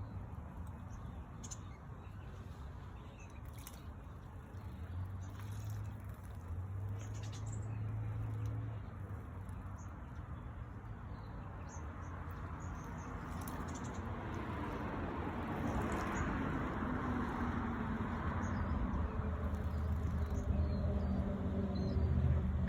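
Scattered faint, brief bird chirps over a steady background hiss and a low hum.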